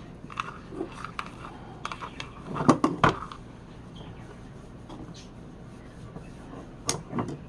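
Scattered clicks and knocks of small hard objects being handled, with a louder cluster of knocks about three seconds in and two more near the end.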